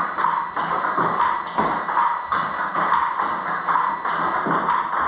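Table-tennis rally against a Butterfly ball-feeding robot: quick, evenly spaced clicks of the ball off the paddle and table, about two to three a second, over a steady background hum.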